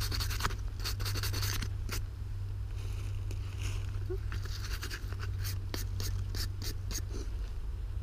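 Gloved fingers scraping and rubbing soil off a small dug-up object, a run of short scratches and clicks, over a steady low hum.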